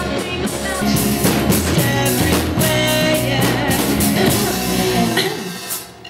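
Rock band playing, with a woman singing over drums and guitar; the music falls away near the end.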